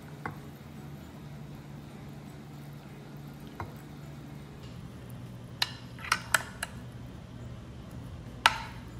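A metal ladle clinking against a glass food container: a quick run of four clinks, then one louder clink near the end, over a steady low hum.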